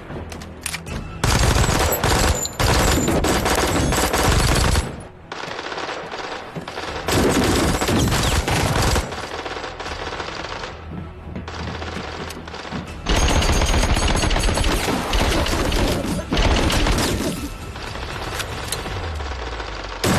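Rapid automatic gunfire in a firefight. There are three long volleys, the first about a second in, with quieter gaps between them and music underneath.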